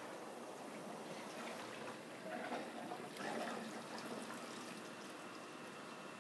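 Water jets of a dip-and-dunk film processor spraying and splashing into the tank, a steady hiss that grows louder for a second or so about halfway through.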